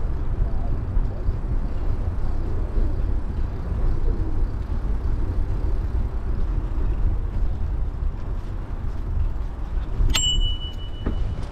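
Bicycle rolling along a gravel canal path, a steady low rumble of tyres and riding noise. About ten seconds in, a bicycle bell rings once, a sharp ding that rings on for over a second.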